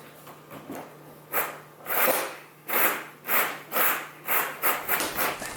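Rope rubbing and rasping in a run of repeated pulls as an anchor line is worked and tied off, about one stroke every half second, coming faster near the end.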